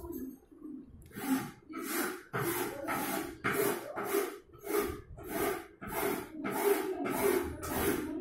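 Rhythmic rubbing strokes, a little over two a second, starting about a second in.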